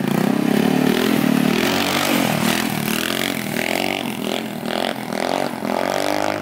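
GY6 150cc single-cylinder four-stroke scooter engine with a handmade exhaust pieced together from a pit-bike exhaust, revving up and down several times under throttle blips as the rider pulls away trying to lift a wheelie.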